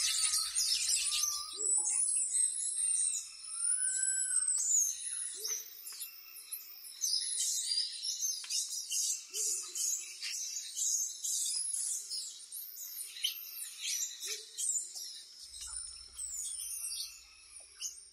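Tropical rainforest chorus of many high-pitched animal calls: rapid chirps and repeated arching whistles overlapping throughout, over a steady high-pitched tone.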